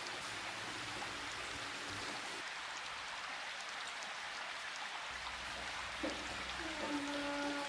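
Steady, even hiss, rain-like, running throughout. About six seconds in there is a soft knock, then a short pitched sound held for about a second near the end.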